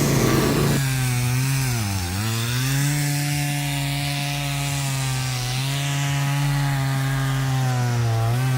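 Chainsaw running at high speed while carving wood. Its engine note drops about two seconds in and again near the end as the chain bites into the log, then comes back up.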